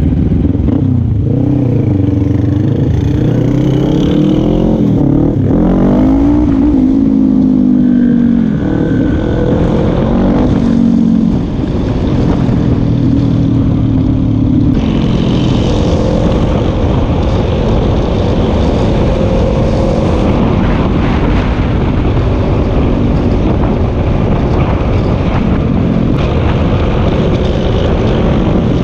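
Motorcycle engine riding under load, revving up and dropping back repeatedly through the gears for about the first twelve seconds, then pulling along more steadily at speed with rushing noise underneath.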